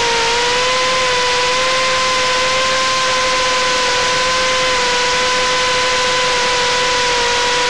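BRINC Lemur indoor drone's propellers buzzing in flight: a loud, steady, high hum that dips slightly in pitch right at the start.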